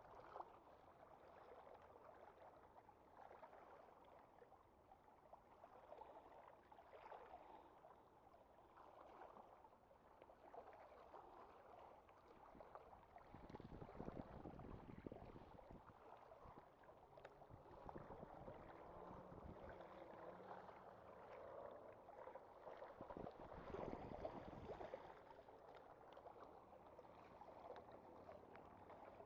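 Near silence: a faint, even wash of calm sea water against a rocky shore, with two brief low rumbles, one about halfway and one later on.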